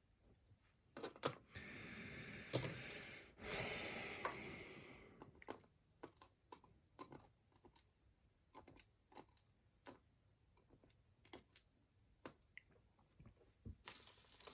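Small metal clicks and handling noise from a pin-tumbler challenge lock and picking tools being worked by hand. A scraping rustle with clicks runs between about one and five seconds in, then scattered single clicks follow.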